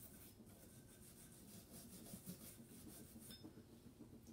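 Soft-bristle cleaning brush scrubbed back and forth along the metal slide of a Smith & Wesson Shield 9mm pistol: faint, quick, repeated brushing strokes that stop a little over three seconds in.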